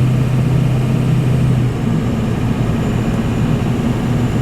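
Semi truck's diesel engine running steadily, heard from inside the cab over road noise; its note changes a little under two seconds in.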